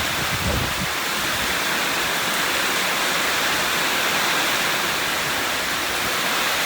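Heavy rain falling steadily, a dense, even hiss, with a brief low rumble in the first second.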